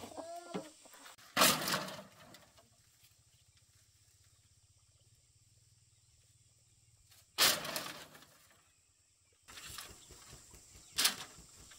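Three loud, sharp strikes: the first about a second in, the next some six seconds later, the last about three and a half seconds after that, each dying away within a second. A chicken clucks briefly at the very start.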